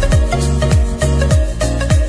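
Background music with a steady beat: deep drum hits that drop sharply in pitch, about three a second, over crisp high percussion.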